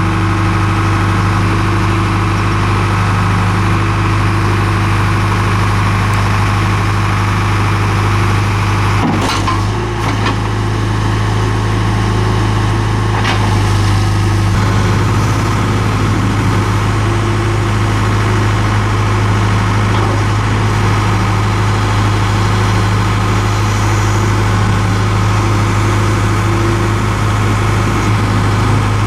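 John Deere 310G backhoe loader's 4045D four-cylinder diesel engine running steadily at idle, with a few brief clicks or knocks between about nine and thirteen seconds in.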